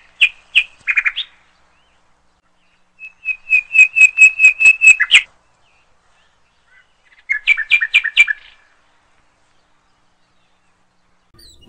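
A bird calling in three bursts of rapid, sharp chirps, about five notes a second, with pauses between: a short burst at the start, a longer run of about a dozen notes around four seconds in, and a shorter burst near eight seconds.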